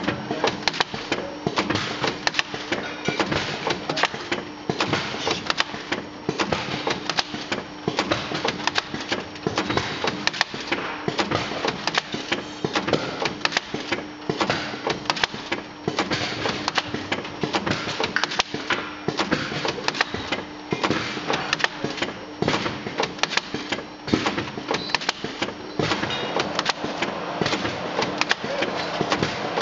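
Cap Coder CC570 capping machine running, its press head pressing caps onto plastic bottles moving along the conveyor: a dense, steady clatter of clicks and knocks over a constant hum.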